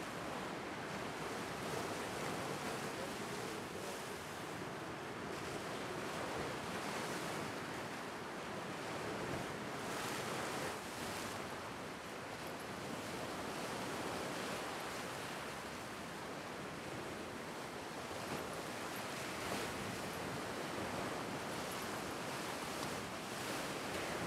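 Lake Superior waves washing in and breaking over rock ledges along the shore: a continuous rush of surf that swells and eases gently.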